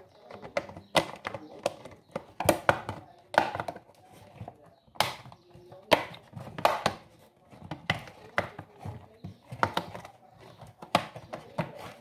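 Irregular plastic clicks and knocks as the plastic motor-housing parts of a Mondial desk fan are handled and snapped together.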